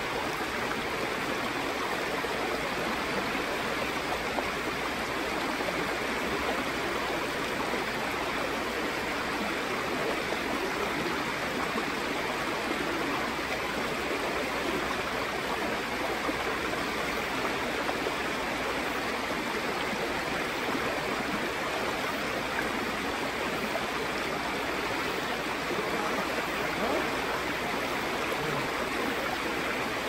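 Mountain valley stream rushing, a steady, even water noise.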